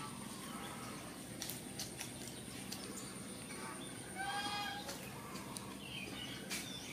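A kitten giving one short, wavering mew about four seconds in, with a few light clicks around it.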